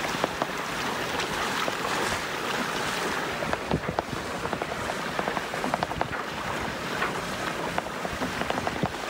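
Sailboat under way: water rushing and splashing along the hull, with wind buffeting the microphone and many short splashy ticks.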